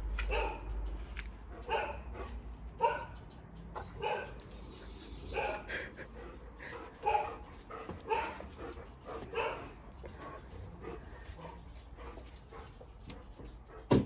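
Dogs barking in short single barks, about one a second and irregularly spaced.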